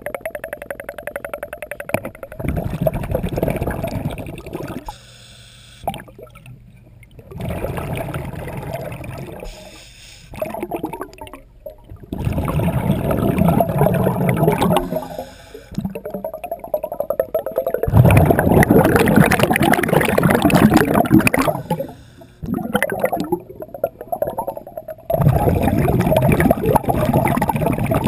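A scuba diver's regulator breathing heard underwater: exhaled bubbles rush and gurgle in five bursts of two to four seconds, about every five seconds, with quieter pauses between and a faint steady hum underneath.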